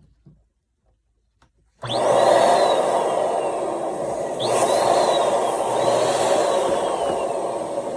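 A few faint handling clicks, then an electric balloon inflator pump switches on a little under two seconds in and runs loudly with a whirring whine, easing and picking up again twice.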